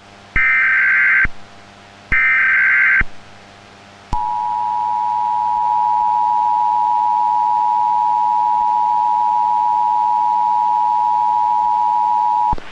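Emergency Alert System tones: two roughly one-second bursts of screechy SAME header data, then the steady two-tone EAS attention signal (853 and 960 Hz) held for about eight seconds before cutting off sharply.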